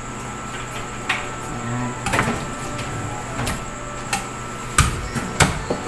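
Cleaver chopping through a whole raw chicken onto a wooden cutting board: about half a dozen sharp, irregularly spaced knocks, the two loudest near the end.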